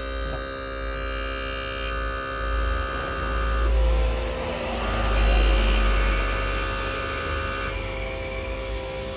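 Vacuum pump of an LCD separator machine running with a steady electrical hum. Higher whining tones drop out and come back a few times over it.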